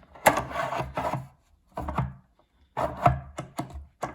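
Plastic chain guard being worked off a new DeWalt FLEXVOLT chainsaw's guide bar and chain: rubbing and scraping with sharp clicks, in three short spells.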